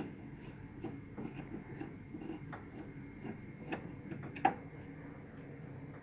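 Light, irregular clicks and taps from hands working on a window air conditioner's casing, with one sharper tap about four and a half seconds in, over a faint steady hum.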